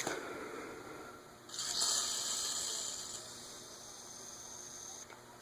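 WD-40 aerosol can spraying: a hiss starts suddenly about a second and a half in, is strongest at first, then thins and stops near the end. It is being sprayed into a ceiling fan motor's stiff bearings.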